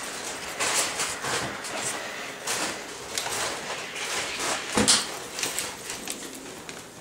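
Irregular swishing and scuffing as a steam mop is pushed back and forth over the floor, with one sharp knock about five seconds in.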